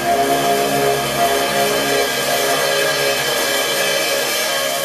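Electric guitar and Pearl drum kit playing together: sustained guitar notes over a steady wash of cymbals.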